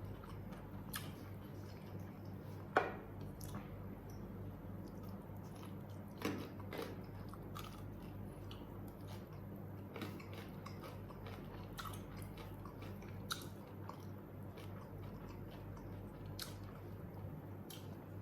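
A person chewing and biting into an ayam geprek meal (smashed fried chicken with egg and rice) close to the microphone: soft scattered mouth clicks, with a couple of louder bites about three and six seconds in, over a steady low hum.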